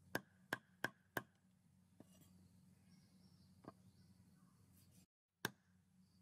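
Meat cleaver chopping chicken feet and legs on a round wooden chopping block: four quick, sharp chops in little more than a second, a lighter chop later, and one more sharp chop near the end.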